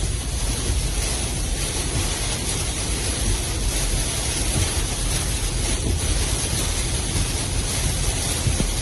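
Steady, loud rushing noise of cyclone wind and water, with no distinct events.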